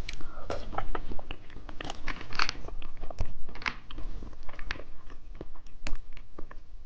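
Irregular crisp crunching and crackling close to the microphone as a grape candy is bitten and chewed.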